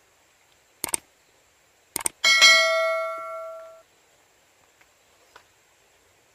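Subscribe-button sound effect: two quick mouse clicks, then a bell ding that rings out and dies away over about a second and a half.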